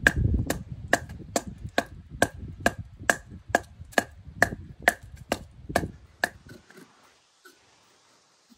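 Batoning: a split log used as a baton knocks on the spine of a carbon-steel Mora Companion Heavy Duty fixed-blade knife, driving it down through a stick of firewood standing on brick pavers. Sharp wooden knocks come evenly, about twice a second, and stop about six seconds in.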